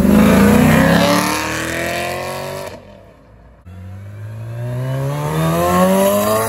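A black C7 Corvette's V8 accelerating away, its note rising in pitch for a few seconds, then a sudden break. After it, a second-generation Toyota MR2 accelerates past, its engine note climbing again.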